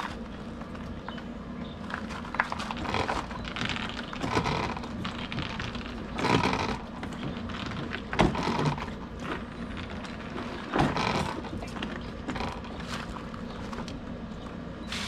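Manual piston pump of a BP-Kawasaki 2-in-1 backpack sprayer being worked up and down to build pressure in the tank, about five louder strokes at uneven intervals.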